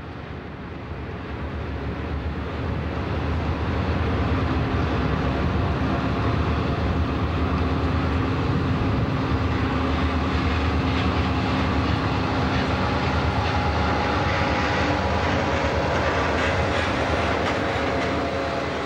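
Three GP38-2 diesel-electric locomotives, each with an EMD 16-645 two-stroke V16 diesel, running as they pass hauling a freight train. Their sound grows louder over the first few seconds, holds steady, and eases near the end.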